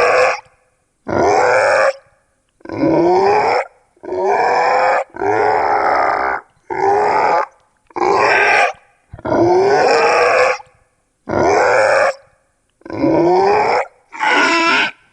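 Goblin creature voice effects: a string of about ten separate short vocalizations, each around a second long with a pitch that slides upward, separated by brief silences.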